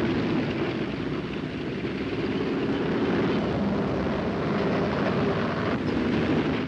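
A heavy engine running with a steady, even drone that stops abruptly at the end.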